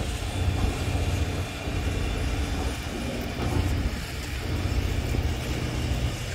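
A heavy engine running steadily, a low even hum.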